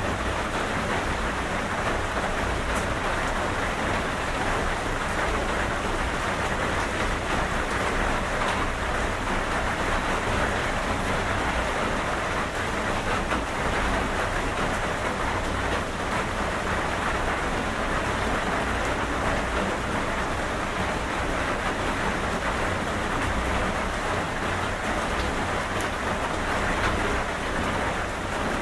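Steady rain falling, an even unbroken hiss with no breaks or swells.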